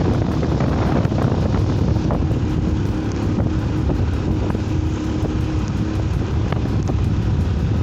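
A vehicle in motion: a steady low rumble of engine and road noise, with wind buffeting the microphone.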